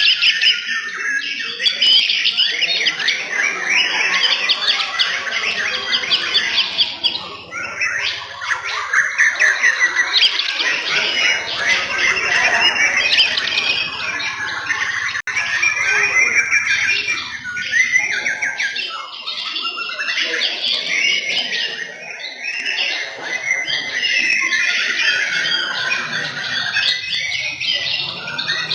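Several white-rumped shamas (murai batu) singing at once. The fast, loud whistled phrases overlap and change constantly, with only brief gaps.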